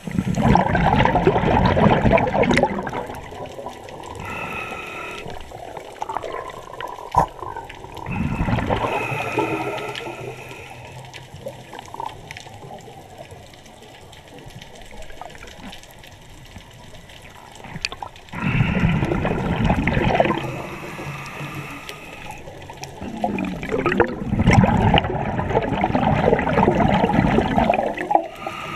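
Scuba diver breathing through a regulator underwater: four long bursts of exhaled bubbles several seconds apart, with quieter hiss and a faint whistling tone at times between them.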